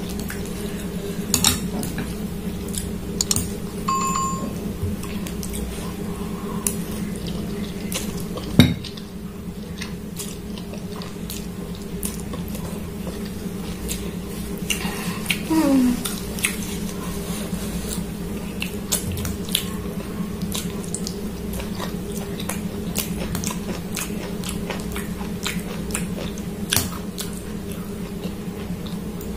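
Eating noises: a metal fork and spoon clicking and clinking against a glass bowl of ramen noodles, with chewing, over a steady low hum. One clink rings briefly about four seconds in, and a sharp knock a little past eight seconds in is the loudest sound.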